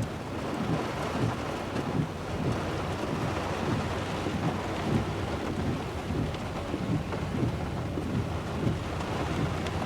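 Heavy rain beating on a truck, heard from inside the cab: a steady hiss with irregular low thuds.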